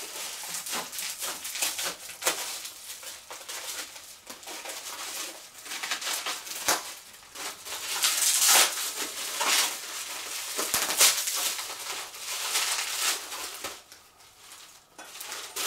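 Plastic bubble wrap crinkling and rustling as it is snipped with scissors and pulled apart by hand, in irregular crackly bursts that are loudest a little past halfway.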